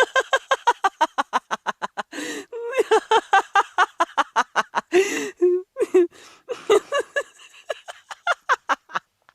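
A woman laughing hard in rapid runs of short pitched "ha" bursts, several a second, broken by quick breaths in between.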